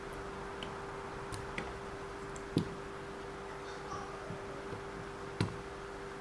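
Scattered light clicks and taps of small parts being handled while hunting for a tiny drive-shaft screw, two of them sharper, about two and a half seconds in and near the end, over a faint steady hum.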